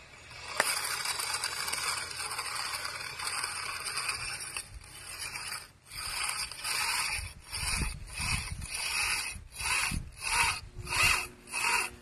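Corded electric drill boring into a concrete column: a steady run of about five seconds, then a short pause and a string of short bursts as the drill stops and starts.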